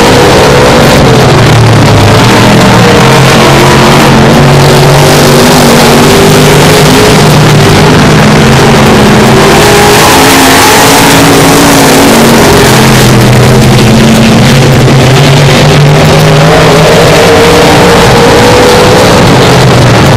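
Several dirt-track stock car engines running hard around the oval, their pitch rising and falling as the cars accelerate down the straights and back off into the turns. One car goes past close about halfway through. The sound is loud and distorted throughout.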